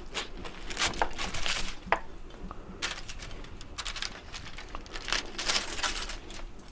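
A knife cutting through a toasted rye-bread sandwich and aluminium foil crinkling under it, in irregular scratchy bursts.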